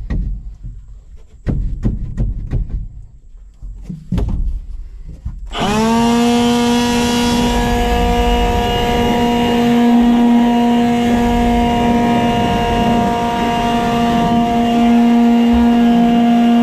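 A few knocks and scrapes, then about five seconds in a leaf blower spins up fast and runs at a steady high whine with a rush of air, blowing out a dirty cab.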